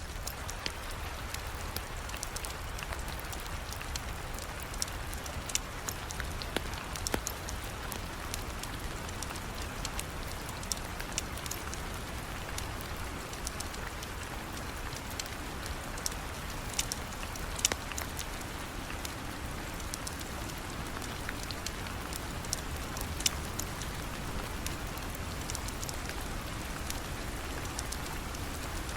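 Steady rain falling, with scattered sharp clicks and pops throughout and a few louder ones.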